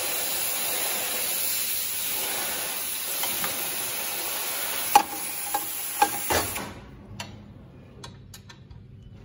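A steady hiss, then a few sharp, ringing metal clinks about five to six seconds in as nut-and-bolt hardware is fitted on a planter's closing-wheel arm. The hiss stops suddenly after that, leaving light clicking and tapping of the parts being handled.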